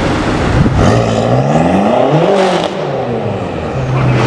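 Manhart-tuned BMW M6 Convertible's twin-turbo V8, breathing through its aftermarket Manhart exhaust, revving: the pitch climbs smoothly for about a second and a half, then falls back to a low steady idle near the end.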